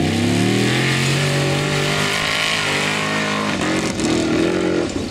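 Formula Offroad hill-climb buggy's engine at full throttle, its revs rising over the first second and then held high. In the last second or so the revs swing quickly up and down.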